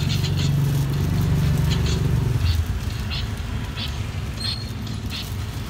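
Small engine idling with a low, steady hum, heavier for the first two and a half seconds and then settling lower. Plastic carry bags crinkle in short bursts over it.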